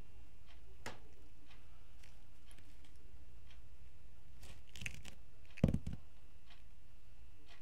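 Eiffel Tower spinning top being batted about by a cat: scattered light clicks and taps, with one louder knock followed by two quicker smaller ones about three quarters of the way in, over a steady low room hum.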